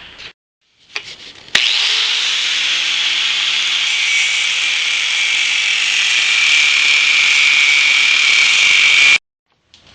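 A power tool cutting, loud and steady for about seven and a half seconds, starting suddenly about a second and a half in and stopping abruptly near the end.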